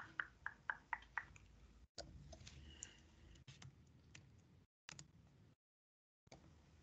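Faint clicking of a computer mouse and keyboard. A quick run of about seven clicks comes in the first second and a half, then scattered single clicks follow, with the sound dropping to dead silence in between.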